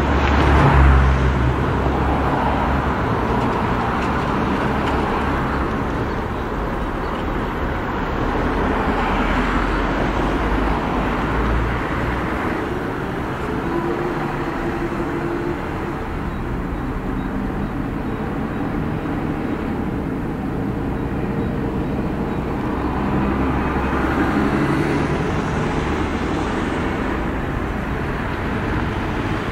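City road traffic: buses, trolleybuses and cars driving through a crossing, with engine rumble and tyre noise. A vehicle passes close and loud about a second in.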